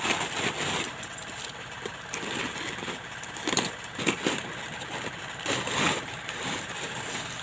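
Parcel packaging being handled and rustled in several short bursts, over a steady engine-like hum.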